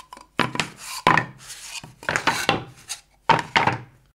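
Thin wooden board panels being laid down and slid over one another on a wooden desk, with the paper templates on them rustling. There are about five short bouts of knocking and scraping.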